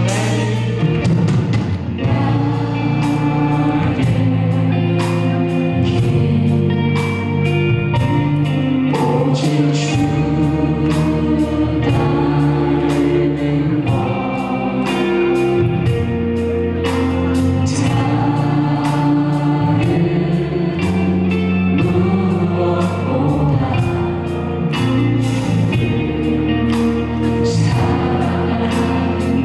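Live contemporary worship band playing: drums with regular cymbal hits, bass, keyboards and electric guitar holding sustained chords, with some singing.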